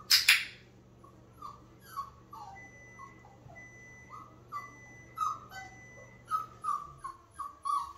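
A training clicker gives a sharp double click at the start, then a flat-coated retriever puppy whimpers in short, high, falling squeaks that come faster toward the end.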